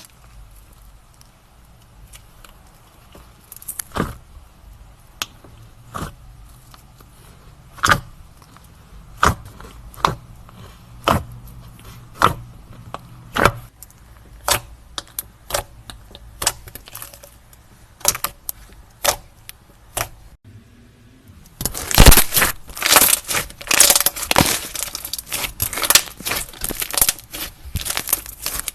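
Slime being squeezed and stretched by hand: sharp sticky pops about once a second, then, after a brief break, a dense run of loud crackling and crunching for the last several seconds.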